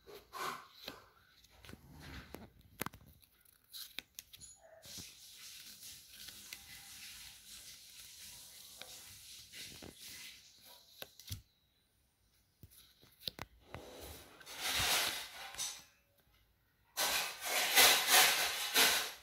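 Pokémon trading cards handled and shuffled through by hand: stiff, glossy card stock sliding and rubbing together. There are a few light clicks at first and louder bursts of rustling near the end.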